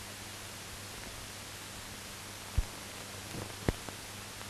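Steady hiss and low hum with no recorded sound, the noise of a silent film's transfer, broken by a few sharp clicks, the loudest about two and a half and three and a half seconds in.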